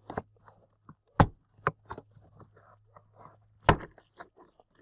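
Hard plastic pillar trim panel in a Subaru Crosstrek being tugged by hand, clicking and knocking as it flexes against its clips, with two sharp loud snaps, about a second in and near the end.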